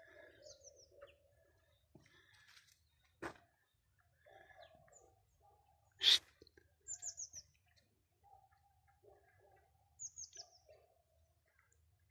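Small bird calling in short runs of three or four quick, high, falling chirps, three times. Two sharp clicks cut across, the second, about six seconds in, the loudest sound.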